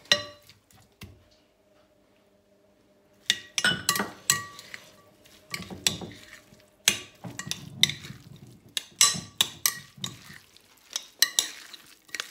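Metal utensil stirring chopped avocado salad in a glass bowl, with repeated clinks and scrapes against the glass. It is quiet for about the first three seconds; the clinking starts after that.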